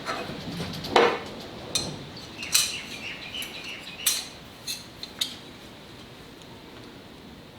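Steel parts of a hand plane, the blade and chip breaker, clinking and clicking together as they are handled and fitted, in a run of sharp light knocks over about five seconds.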